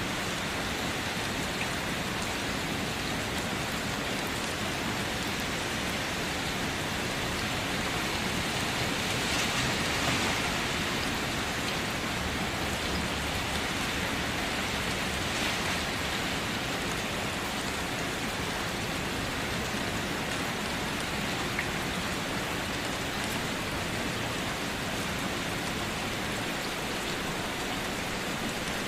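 Steady rain falling and pattering on surfaces, an even hiss without pause, swelling briefly a third of the way in.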